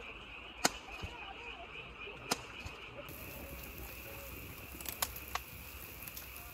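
Fireworks going off, two sharp pops in the first few seconds; then a steady hiss of meat sizzling on a charcoal grill, with a couple of small crackles.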